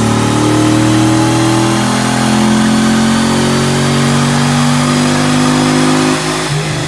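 2012 Camaro SS's 6.2-litre V8 running hard under load on a chassis dyno, its pitch climbing steadily through a dyno pull; about six seconds in the throttle comes off, it gets quieter and the revs start to fall.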